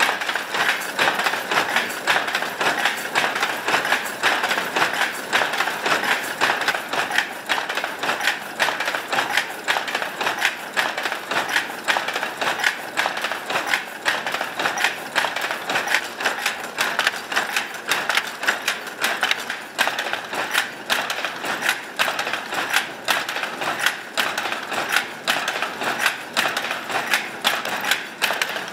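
Early Shōwa-era Toyoda automatic power loom running and weaving: a fast, steady mechanical clatter of rapid clicks and knocks.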